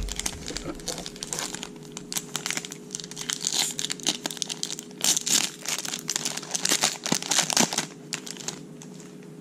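Foil wrapper of a baseball card pack being torn open and crinkled, a long irregular run of crinkles that dies down about a second before the end.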